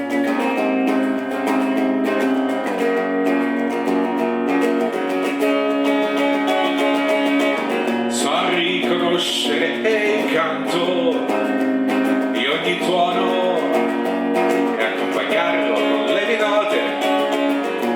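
Music: acoustic guitar playing a song's accompaniment, plucked and strummed. About eight seconds in, a higher melodic line with gliding pitch joins over the guitar.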